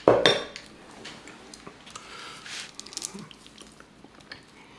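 Close-miked eating: wet chewing and small mouth clicks as forkfuls of cube steak in gravy and mashed potatoes are eaten, with a short, loud sound right at the start and a brief hiss a little past two seconds in.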